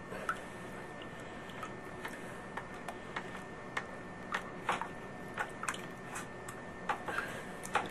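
Hands working in the water of a sump pit while refitting a submersible sump pump's discharge pipe: light, irregular splashes and sloshing with small plastic clicks and knocks, over a faint steady hiss.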